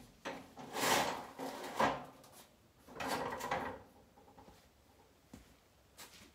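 Sections of a black steel roof basket being handled and slid together, with several short scrapes and knocks of metal tube in the first four seconds, then only faint handling.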